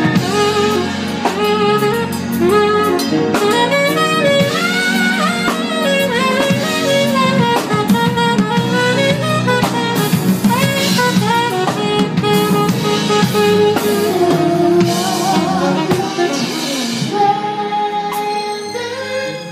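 Live band playing an instrumental passage between sung lines: a lead melody line with sliding notes over drums and bass.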